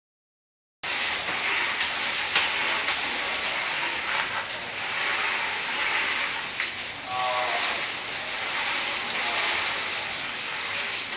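Steady hiss of a bicycle's rear tyre spinning on the roller of a bike trainer as it is pedalled, starting suddenly just under a second in.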